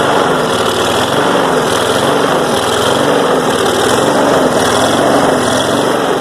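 Push mower's small four-stroke engine running with its oil drained and dirt fed into the intake, its speed rising and falling about twice a second. It has started knocking, which the owner takes for rod knock from running without oil.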